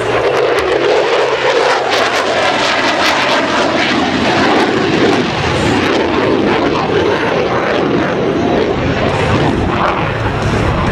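F-35A Lightning II's single Pratt & Whitney F135 jet engine, heard as a loud continuous roar while the jet pulls a tight turn. There is a rough crackle from about two to five seconds in.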